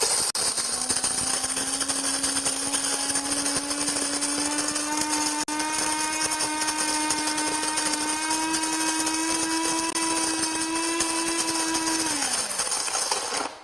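Cuisinart Supreme Grind automatic burr grinder's motor grinding coffee beans, a steady whine that climbs slightly in pitch. Near the end it winds down and stops as the grinder shuts itself off once the set amount is ground.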